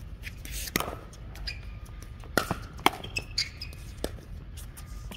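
Pickleball doubles rally: a series of sharp pocks from paddles striking the plastic ball and the ball bouncing on the hard court, at uneven gaps, the loudest about a second in, twice in quick succession near the middle, and once more a little later.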